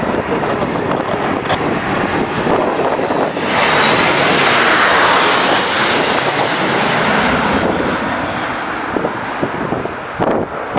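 Jet airliner's engines passing close on a landing approach: a loud rushing noise that swells to a peak a few seconds in, with a high engine whine that bends slowly in pitch, then eases off.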